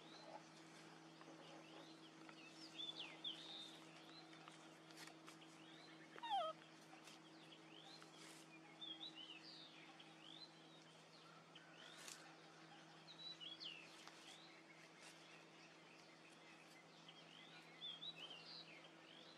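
Faint bird chirps in short scattered bursts over a low steady hum, with one louder falling call about six seconds in.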